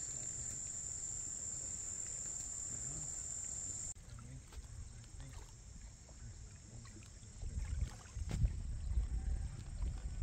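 A steady, high-pitched insect chorus for about four seconds, cut off sharply at a change of shot. Then it goes quieter, and from about three quarters of the way in low wind rumble buffets the microphone, with a couple of knocks.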